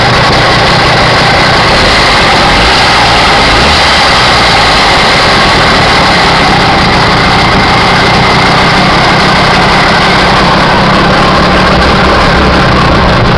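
48cc two-stroke motorized-bicycle engine running steadily, loud and close. The owner calls the noise it is making strange, without a cause given.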